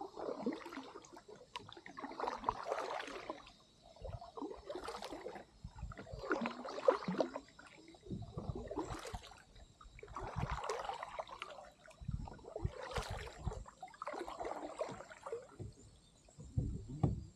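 Kayak paddle strokes: the blade splashing into and pulling through river water in a steady rhythm, about one stroke every two seconds. A faint steady high tone sits underneath.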